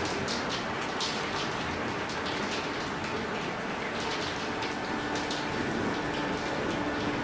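Steady rain falling, with scattered drop splashes. Faint held tones come in about five seconds in.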